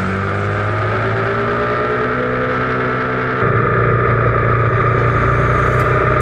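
Aprilia Tuono 1000R's V-twin engine running steadily under way, with wind noise, its pitch drifting gently as the bike takes the bends. About three and a half seconds in, the sound jumps to a louder, deeper rumble.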